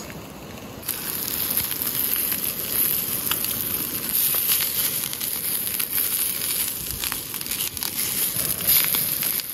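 Pacific saury sizzling and crackling on a hot iron griddle: a steady hiss with scattered small pops, starting about a second in.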